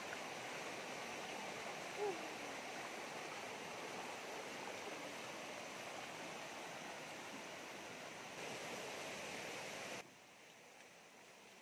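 Shallow stream rushing steadily over rocks and small rapids. The sound drops abruptly to a much fainter hiss near the end.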